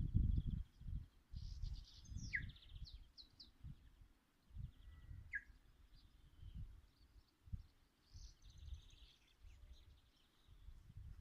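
Small birds chirping, with quick trilled phrases and a couple of short falling notes, over irregular bursts of low rumbling on the microphone.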